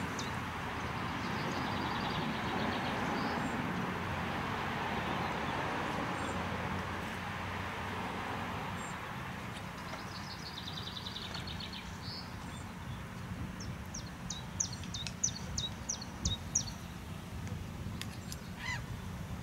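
Outdoor ambience: a steady background rumble and hiss, with small birds calling over it. A rapid trill comes about ten seconds in, and a run of sharp chirps follows a few seconds later.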